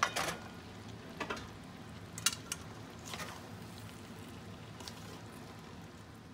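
Wooden spoon stirring and tossing pasta in a stainless steel pan, with a few short scrapes and knocks of the spoon against the pan.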